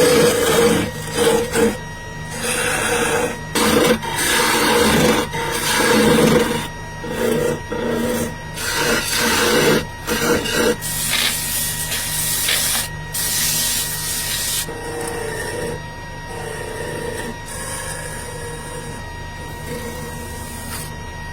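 Wood lathe spinning a wooden bowl blank, with a hand-held turning chisel scraping and cutting the wood in uneven bursts over the machine's steady hum and whine. The cutting eases after about fifteen seconds into a steadier, quieter scraping, and the sound cuts off at the very end.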